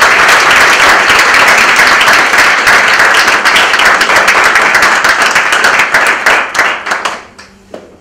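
An audience applauding, dense and steady, thinning out and stopping near the end.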